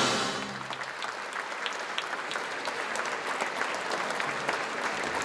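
Audience applauding, many hands clapping together, as the music's last chord dies away in the first moment.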